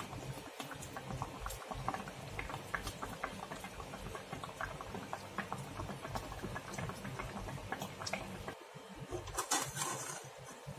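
Pot of fish soup with leafy greens at a rolling boil, bubbling with a dense patter of small pops. Near the end a brief, louder clatter comes as a metal ladle goes into the pot.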